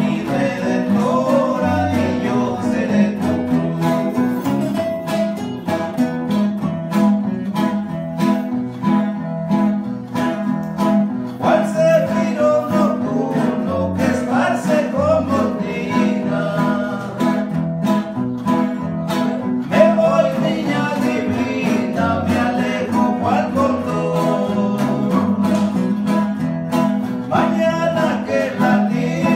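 Two guitars, a small acoustic guitar and a green acoustic-electric guitar, playing a corrido together with steady plucked and strummed rhythm.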